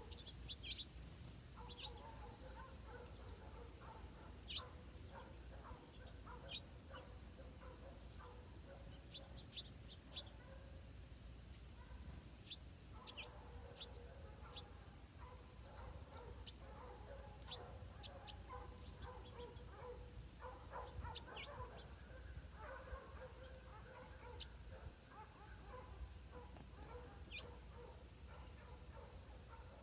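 Faint birdsong: short, sharp high chirps scattered throughout, over longer stretches of busier, lower chattering calls, with a steady low hum underneath.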